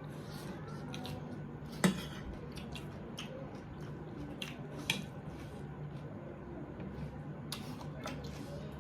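Eating sounds at a table: chewing with scattered sharp clicks of utensils against a plate, the loudest about two seconds in, over a steady low hum.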